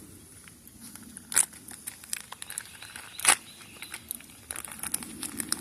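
Two sharp clicks about two seconds apart, from pork belly pieces and utensils being handled at a cookpot, over a faint steady background.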